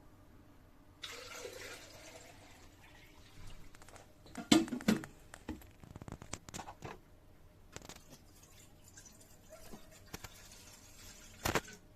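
Water trickling and dripping, with a few sharp knocks and clicks, the loudest about four and a half seconds in and again near the end.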